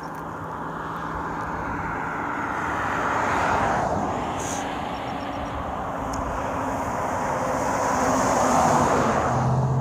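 Road vehicles passing on a highway, their tyre and engine noise swelling and fading twice, loudest about three and a half seconds in and again near the end.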